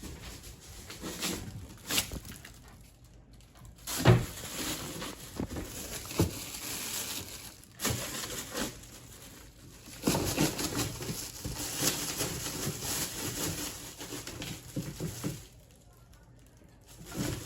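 A puppy rummaging through a trash can: scattered rustling and crinkling of the contents, with short knocks now and then.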